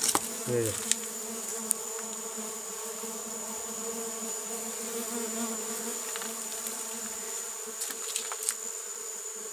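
Mandaçaia stingless bees (Melipona quadrifasciata) buzzing steadily at a hive entrance: a busy colony with strong flight traffic. A few light clicks sound near the start and again near the end.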